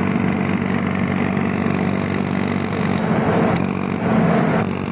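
Value HVAC vacuum pump, an oil-filled unit, running steadily: an even motor hum with a hiss over it.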